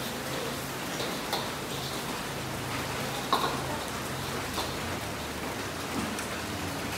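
Noodles stir-fried in a wok: a steady sizzling hiss, with the steel ladle clanking against the wok several times, loudest a little over three seconds in.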